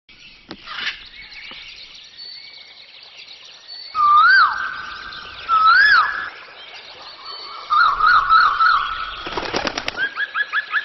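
A bird calling with loud whistles: two long held notes, each ending in a quick up-and-down swoop, then a warbling trill, a short rattle of clicks, and a fast run of repeated chirps near the end.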